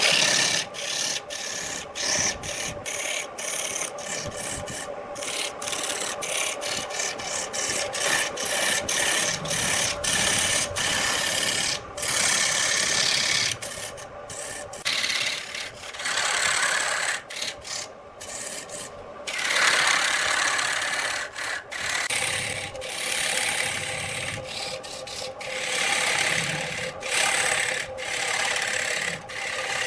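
Wood lathe running with a tool rasping against the spinning wood: a steady motor hum under a scraping noise that swells and fades every few seconds, broken by many brief dropouts.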